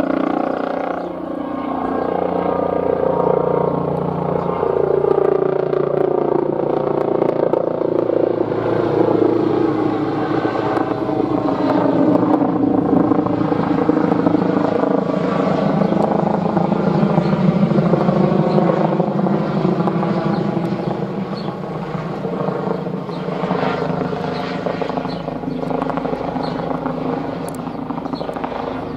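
Airbus H135 (Eurocopter EC135) twin-turbine helicopter flying over, its main rotor and shrouded fenestron tail rotor making a continuous drone. The pitch slowly falls as it passes, and the sound eases off a little near the end.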